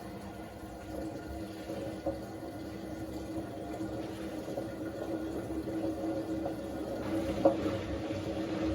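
Indesit IWD61450 washing machine running its service-mode test cycle: water running in the machine under a steady hum that slowly grows louder. One sharp click comes about seven and a half seconds in.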